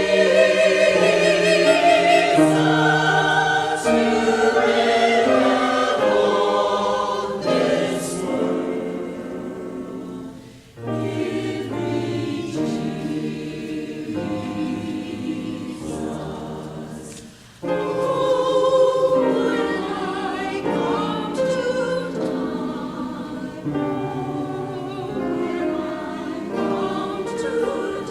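Church choir singing, several voices in sustained notes with vibrato, pausing briefly between phrases about eleven and seventeen seconds in.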